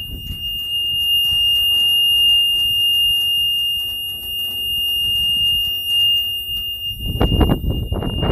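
A continuous high-pitched alarm-like tone held steady on one pitch, over a low rumble.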